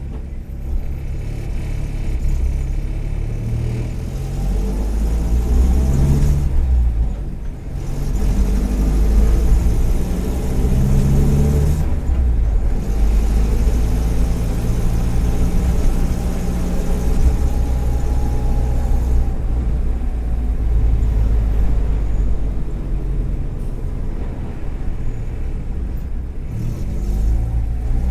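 Volkswagen EA111 1.4-litre four-cylinder engine of a 2009 Kombi running on the road, rising in pitch as it accelerates, with a brief drop about seven seconds in. Its worn spark plug cables and coil cause occasional misfires, and the owner takes some of the other noise for a probably cracked exhaust manifold and rattling trim.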